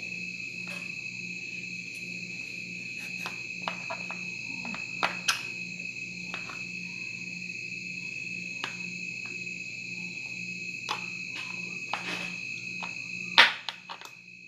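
A knife cutting through a baked stuffed bread loaf held with a fork in a metal baking pan: scattered faint clicks of metal against the pan, and one sharp knock near the end. A steady high-pitched whine runs underneath.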